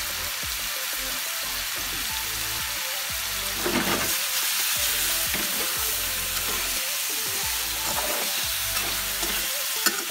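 Chicken pieces sizzling in hot oil in a frying pan as they are sautéed with onion, ginger and garlic, turned with a metal spatula that scrapes the pan. The sizzle and stirring get louder for a moment about four seconds in.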